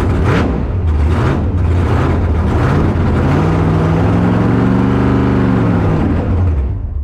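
A loud race car engine running hard at a drag strip. Its pitch climbs from about three seconds in, holds, then drops away; the sound cuts off abruptly at the end.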